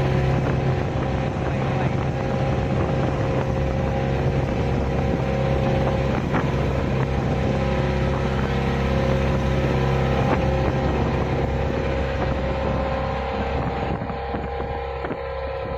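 Outrigger boat's engine running steadily underway, with wind buffeting the microphone.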